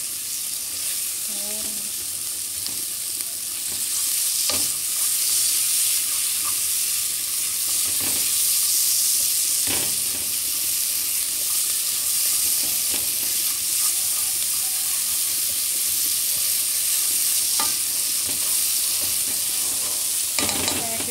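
Chopped onion, bell pepper and tomato frying in oil in a pan, sizzling steadily as they brown, with a spoon stirring and knocking against the pan now and then.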